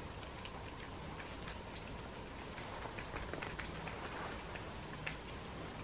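Melting snow dripping gently off a roof: scattered, irregular drips and taps over a steady low background hiss.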